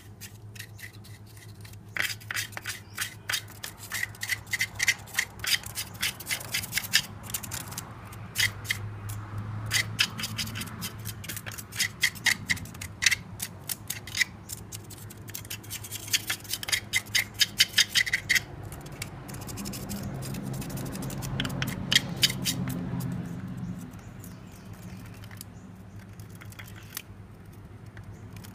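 Ratchet wrench clicking in quick runs with short pauses as the bolts of a scooter's final-drive gear-case cover are undone. A low hum swells for a few seconds in the second half.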